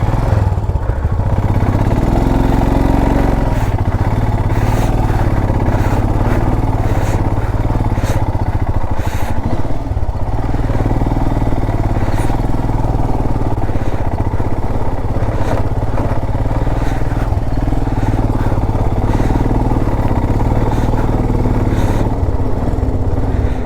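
Motorcycle engine running steadily under way on a rough off-road trail, with scattered short knocks and rattles over it.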